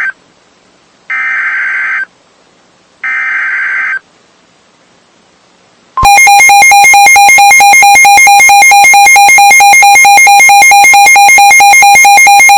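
Two one-second bursts of harsh digital SAME header tones, a second apart, the coded header of an incoming NOAA Weather Radio alert. About six seconds in, a loud, rapidly pulsing two-pitch electronic alarm starts: the weather radio's alert siren going off for a severe thunderstorm warning.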